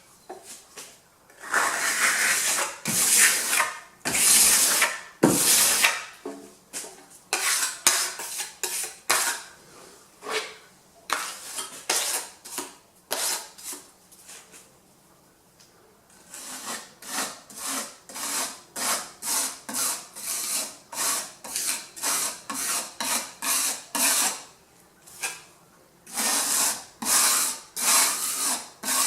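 Repeated hand strokes of a tool rubbing or scraping across a surface, about one and a half strokes a second, with a short pause about halfway through.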